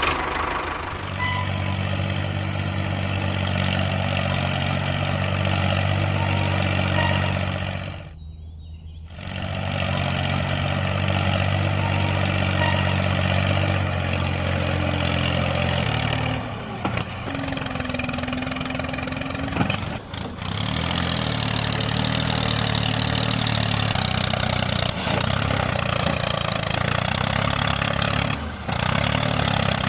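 Tractor engine running steadily. It cuts out briefly about eight seconds in and changes pitch around sixteen seconds in.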